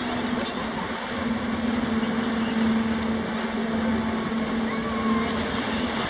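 Steady low drone from the lake freighter American Century as it passes close by, one unchanging tone over a constant rumbling wash.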